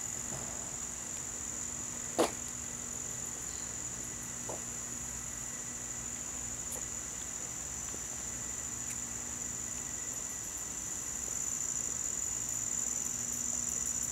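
A steady, high-pitched chorus of insects, with one sharp click about two seconds in.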